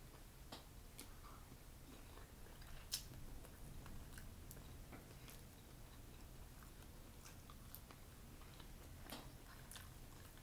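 Faint eating sounds: scattered small clicks and crackles of boiled shrimp being peeled by hand and chewed, with one sharper click about three seconds in, over a low room hum.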